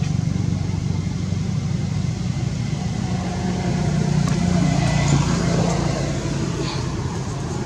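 A steady low engine rumble from a motor vehicle running nearby.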